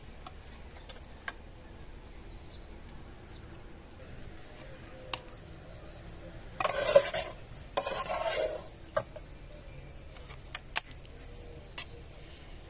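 A large metal spoon scraping and clinking against a pot and a metal serving tray as thick tomato sauce is spooned out. A few light clicks, then about halfway through two loud scraping strokes in quick succession, followed by several sharp clinks.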